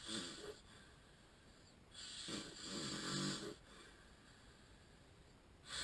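A man with sleep apnea snoring in his sleep: the end of one snore at the start, a longer, louder rattling snore about two seconds in that lasts a second and a half, and the next snore starting near the end.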